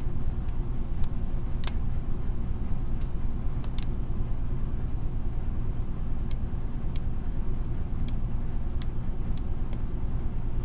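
Sharp, irregular metallic ticks of a lock pick working the pins inside a pin tumbler lock under tension, about fifteen in all, over a steady low hum.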